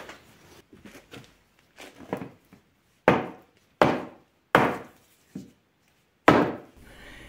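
A series of hard knocks: a few quiet taps, then five sharp, loud knocks less than a second apart in the second half, each dying away quickly.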